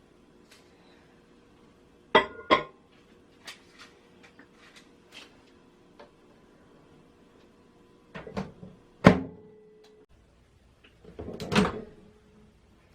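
Household handling noises in a small room: two sharp knocks about two seconds in, a few light taps, then heavier clunks and thuds later on, like cupboard doors or objects being set down.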